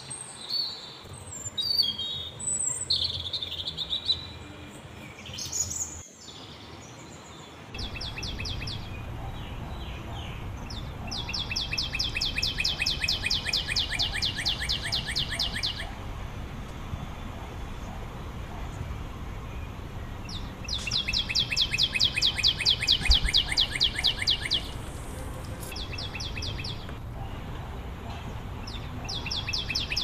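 Little spiderhunters calling: a few scattered high chirps, then long runs of fast, evenly repeated high-pitched chirps, each run lasting several seconds.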